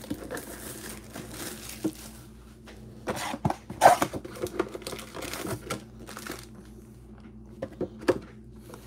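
Cellophane shrink wrap crinkling as it is torn off a cardboard trading-card hobby box, then the cardboard lid opened and the box handled, with scattered rustles and light taps. The loudest crinkling comes about four seconds in.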